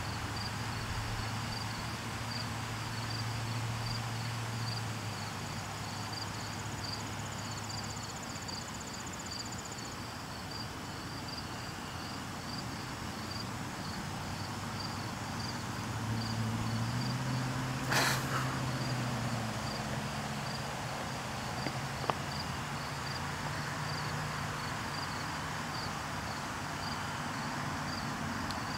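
An insect chirping in an even, steady rhythm, a little over one chirp a second, over a low steady hum. A single sharp click sounds about two thirds of the way through.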